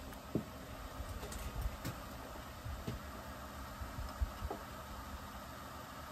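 Small knocks, clicks and low thumps of hand tools and metal parts being handled while a Husqvarna 357XP chainsaw powerhead is taken apart, over a steady low background hum.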